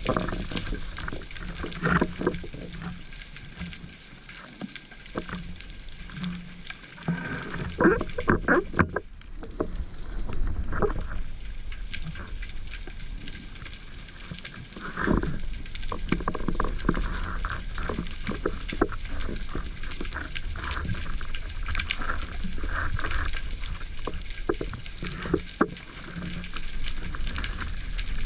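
Underwater sound picked up through a camera's waterproof housing: a steady low rumble with irregular knocks and clicks, several close together about eight seconds in and a strong one about fifteen seconds in.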